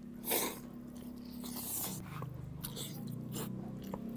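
Whole deep-fried chicken's crispy skin crunching as it is bitten into, several crunchy bites and chewing close to the microphone, over a faint low steady hum.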